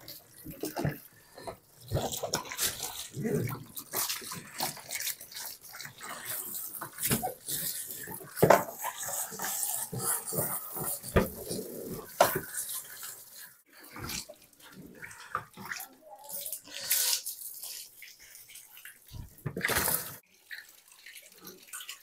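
Water splashing irregularly over the plastic body and tub of a semi-automatic washing machine as it is rinsed down by hand, with scattered knocks and rubbing.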